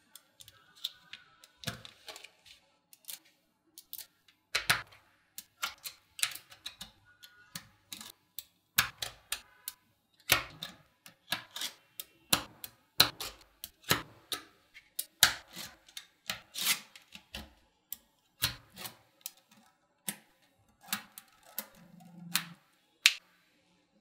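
Small magnetic balls clicking and snapping together by hand, in irregular runs of sharp clicks, as rows of balls are pressed onto a wall of balls.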